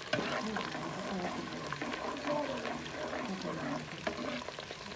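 A metal ladle stirring chopped onions frying in oil in an aluminium pot, with a few sharp clicks of the ladle against the pot over a steady sizzle.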